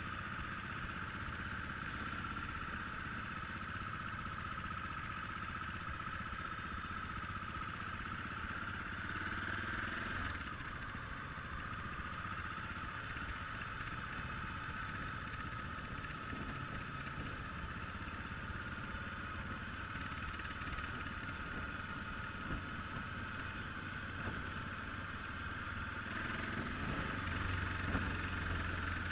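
Enduro-style motorcycle engine running under way, a steady drone with road and air noise. The engine note swells about ten seconds in, drops back, and rises again near the end as the rider accelerates.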